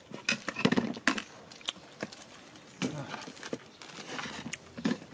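Irregular clicks, taps and short scuffs as small monkeys move about and pick at spilled rice on a plastic table top.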